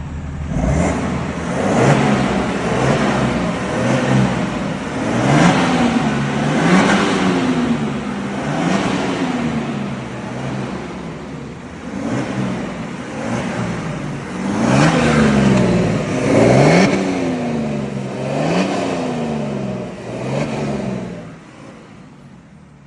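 Chevrolet Silverado's six-cylinder Duramax turbodiesel, fitted with an aftermarket exhaust and diffuser, revved in about a dozen short blips one after another, the pitch rising and falling with each. Near the end it drops back and goes quieter.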